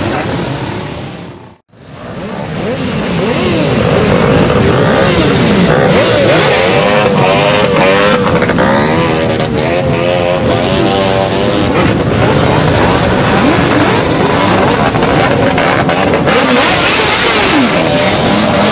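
A column of many motorcycles riding past close by, their engines running together and revving up and down. The sound dips out briefly about two seconds in, then returns.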